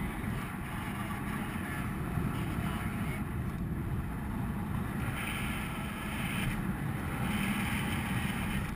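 Wind from the paraglider's airspeed rushing over the action camera's microphone: a steady low rumble, with a brighter hiss swelling twice in the second half.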